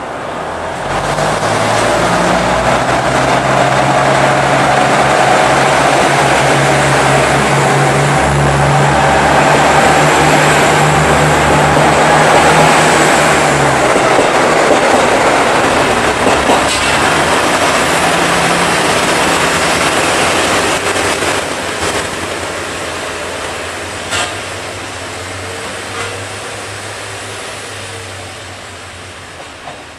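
A JR Central diesel railcar pulling out. Its diesel engine runs under power with a steady low drone for about the first half, then the engine note drops away as the cars roll past. A few sharp clicks come from the wheels, and the rumble fades as the train leaves.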